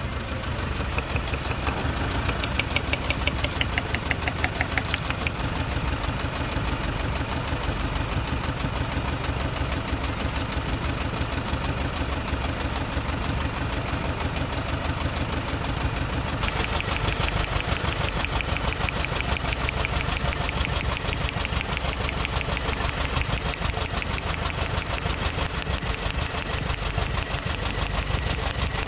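Volkswagen Golf petrol engine idling with a steady, even pulse, running on three cylinders: one cylinder is dead for lack of spark, which the mechanic puts down to a damaged ignition coil. A little past halfway the sound turns sharper and brighter.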